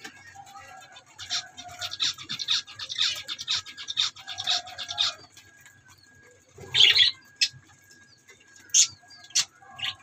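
Budgerigars chattering: a quick run of high chirps for about four seconds, one louder, harsher burst just before seven seconds in, then a few single sharp chirps.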